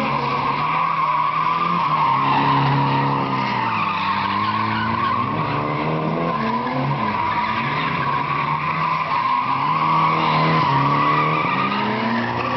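Semi-truck tractor unit doing a smoky burnout drift: tyres squealing steadily on asphalt while the diesel engine revs up and down.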